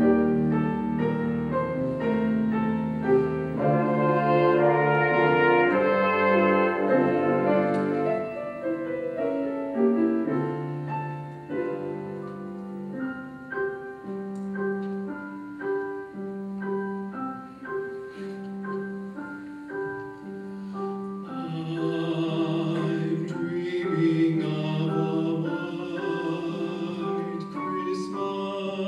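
Brass ensemble playing a slow introduction of long held chords to a choral arrangement; singing with vibrato comes in over the chords about three-quarters of the way through.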